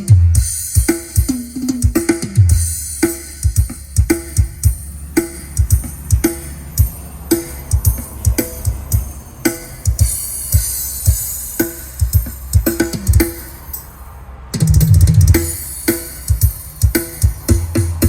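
Drum-heavy music with a deep, punchy bass beat, played through a home-built Bluetooth speaker with a 6.5-inch driver and 3-inch mids during a sound test. About 14 s in the beat drops out briefly and comes back with a heavy bass swell.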